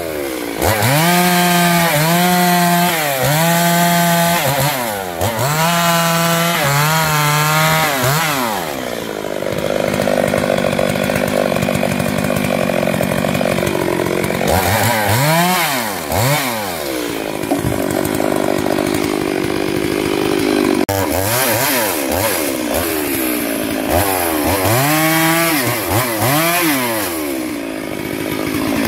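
STIHL MS 382 two-stroke chainsaw cutting through branches and logs. The engine is revved in a run of quick bursts, each rising and falling about once a second, then held steady at a lower pitch under load through longer cuts, then back to short bursts.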